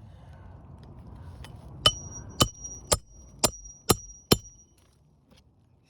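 Six quick hammer blows on metal, about two a second, each with a high ring, driving nails through a roof snake to fasten a replacement asphalt shingle. Before them comes a soft scraping as the shingle is slid into place.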